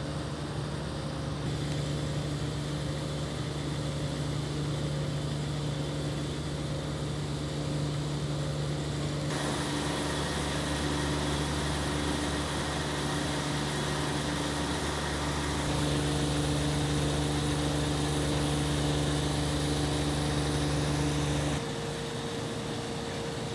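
An engine running steadily with a low, even hum, which stops abruptly near the end.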